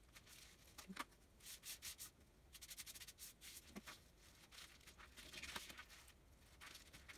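Faint crinkling and rustling of paint-covered plastic bubble wrap as it is pressed flat onto paper and peeled off again, with a few sharp crackles.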